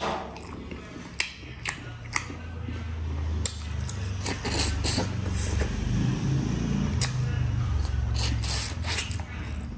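Close-miked eating of mutton and rice: chewing with many sharp wet clicks and smacks, over a low, uneven rumble from the middle on.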